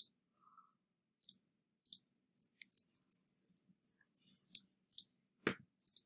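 Faint, irregular clicks of a computer mouse and keyboard: a few single clicks, then a quicker run of clicks from about two seconds in, with one sharper knock near the end.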